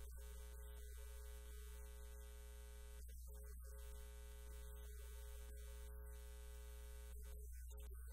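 Steady low electrical mains hum in the audio feed, with no other clear sound.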